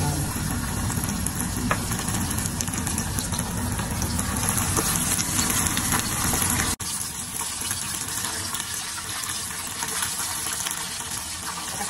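Hot oil in a pot sizzling and bubbling steadily as cornstarch-coated chicken pieces deep-fry, the first of two fryings. The sound drops out for an instant about seven seconds in, then goes on.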